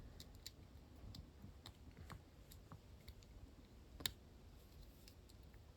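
Faint, scattered small clicks of the parts of a Switchcraft low-profile XLR connector being handled and fitted together, with one sharper click about four seconds in.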